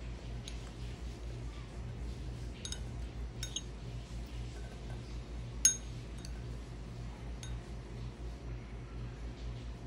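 A steel spoon clinking against a ceramic bowl a handful of times while scooping kulfi, the sharpest clink a little past halfway, over a steady low hum.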